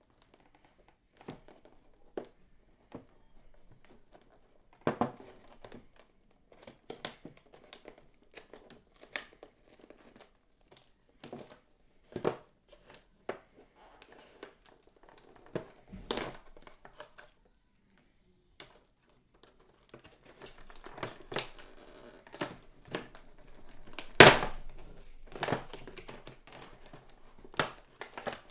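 Toy car packaging being handled and torn open: irregular crinkling, rustling and tearing with scattered sharp clicks and knocks, getting busier in the last third, with one loud sharp crack about three-quarters of the way through.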